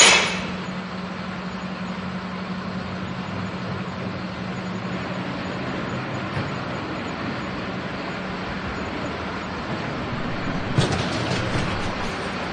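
Garbage truck running at a steady idle with a low hum while collecting bins, opening with a short loud burst and turning to a cluster of sharp noisy bursts near the end.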